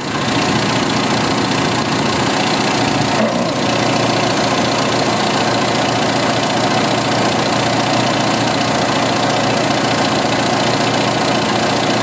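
1986 Jeep Cherokee XJ's 2.5 L AMC inline-four idling steadily at full operating temperature. It runs smoothly with its crankcase-ventilation vacuum leak repaired, though the scanner still shows the engine running lean.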